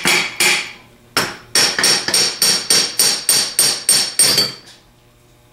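Hammer striking the drive-end housing (nose) of a Delco Remy 42MT starter motor to knock it loose. Sharp metallic ringing blows: two at the start, then a rapid run of about four a second that stops about four and a half seconds in.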